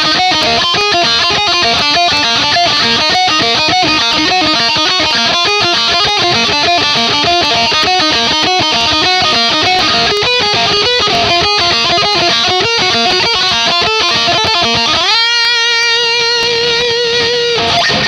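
Ibanez RGIT20FE electric guitar with EMG humbuckers, played with distortion: a fast run of single notes, then about three seconds from the end a note bent upward and held with vibrato until it stops.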